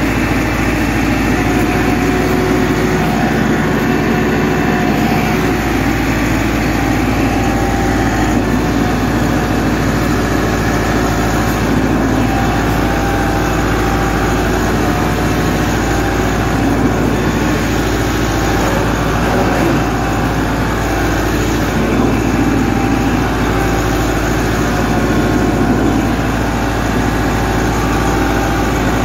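Massey Ferguson 385 tractor's diesel engine running loud and steady under load as it pulls a three-tine chisel plough through the soil.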